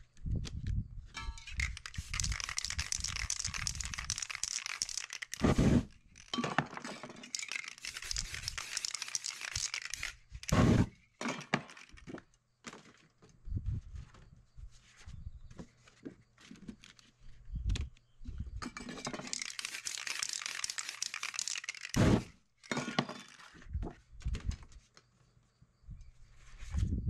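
Aerosol spray-paint can hissing in several long bursts through a paper stencil, with paper crinkling and a few sharp knocks as the stencil sheet is handled and lifted off.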